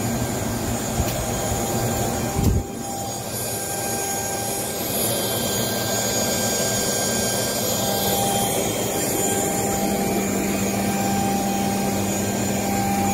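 Waste-oil heater running, its small air blower forcing air into the burners with a steady, loud rushing noise and a low hum. A single bump about two and a half seconds in.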